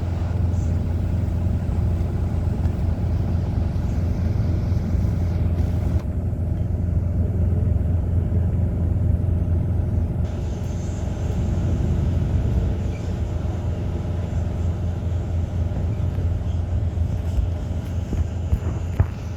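City bus interior while driving: a steady low engine and road rumble, with a couple of sharp clicks near the end.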